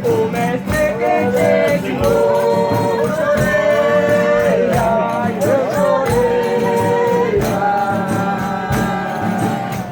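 Folia de Reis singers sing together in several voices, holding long notes that slide from one pitch to the next. Percussion strikes steadily about once a second beneath them.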